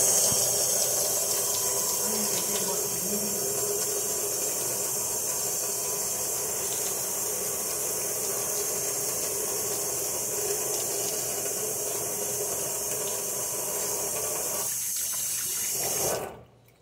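Kitchen faucet running steadily into a stainless steel sink, then shut off near the end.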